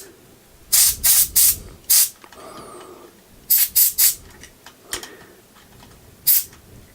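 Can of compressed air giving short, hissing blasts, about nine in three quick groups, aimed into a mechanical keyboard switch to blow out the dust behind the key's repeat-character chatter.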